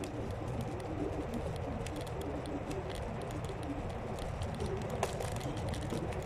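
Electric scooter riding along, heard as a steady rumble of wind and tyre noise on the microphone, with scattered small clicks and rattles.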